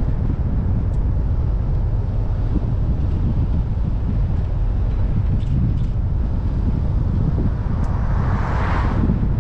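Steady rumble of a car driving at speed, with road noise and wind buffeting the microphone. Near the end an oncoming vehicle passes close by with a brief rising-and-falling whoosh.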